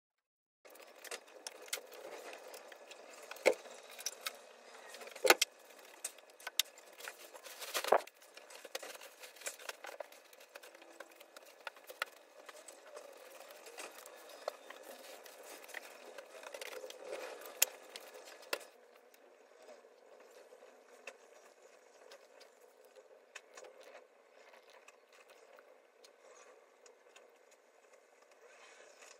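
Close handling noise: scattered clicks, knocks and rustles of objects and clothing being moved, with three sharp knocks in the first few seconds. About two-thirds of the way through the level drops suddenly and only faint scattered clicks remain.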